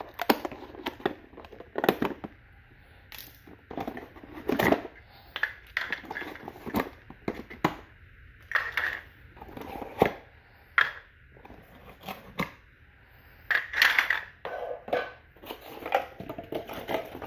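Scissors cutting and crunching through a cardboard packaging insert, with irregular sharp clicks and knocks as hard plastic toy-train tunnel pieces are pulled free and set down on a tile floor.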